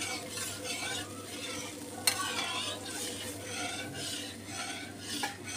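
Steel spoon stirring a cornflour slurry round a metal kadhai of hot ghee, scraping the pan in repeated strokes about twice a second, over a faint sizzle. One sharp tap of the spoon on the pan comes about two seconds in.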